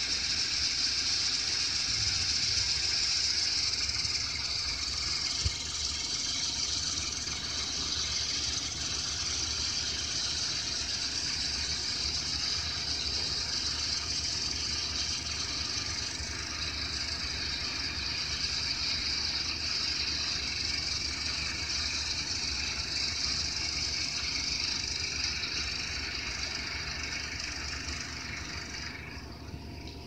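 Backhoe loader engine sound running steadily, played back through a small speaker, so it comes out thin and hissy with little low end. It cuts off about a second before the picture changes.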